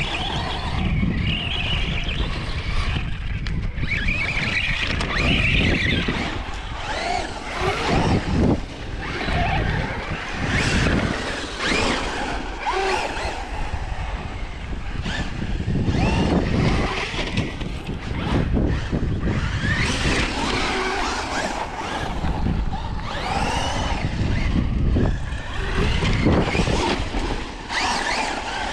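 Electric RC trucks driving hard, their motors whining up and down in pitch as they speed up and slow, with tyre and ground noise and wind rumbling on the microphone.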